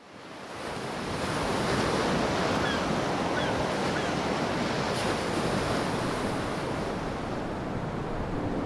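Ocean surf: waves washing in as a steady rushing noise that fades up from silence over the first second or two.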